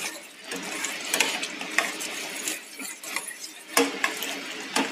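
A spoon stirring and scraping onion paste and ground spices as they fry in oil in a pot, with irregular scrapes and clinks against the pot over a light sizzle. This is the masala being roasted (bhuna) for a kofta gravy.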